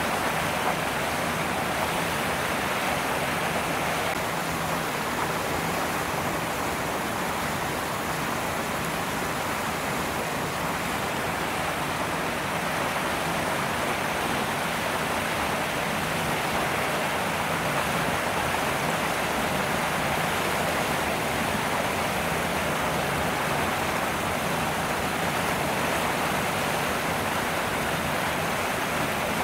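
Steady, even rushing noise with no distinct sounds standing out of it.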